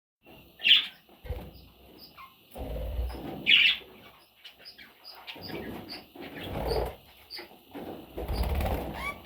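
Pet budgerigars chirping in short high calls, two of them loud, a little under a second in and about three and a half seconds in, with bursts of wing flapping and rustling between.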